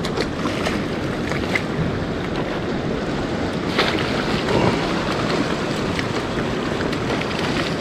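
Steady wash of wind and waves, with wind buffeting the microphone, and a few faint clicks scattered through it.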